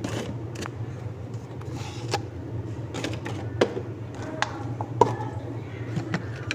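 Plastic kitchenware being handled on a wooden shelf: a few light clicks and knocks as a blender jar and a plastic cup are moved and set down, over a steady low hum.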